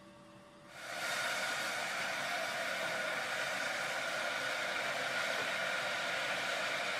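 Steady hissing from a stainless-steel pot of sugar syrup heating on the stove, starting abruptly about a second in.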